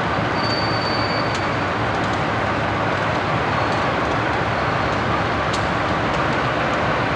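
Conrail diesel-electric locomotive running, a steady engine and rail noise with no distinct events.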